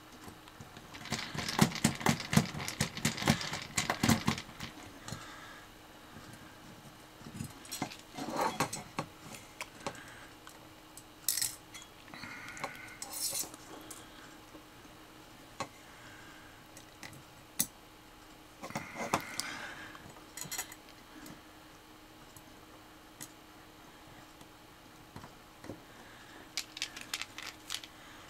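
Small screws, a screwdriver and the red aluminium rover chassis clicking and clinking together as tiny motors are screwed in place: a dense run of clicks in the first few seconds, then scattered short groups of clinks.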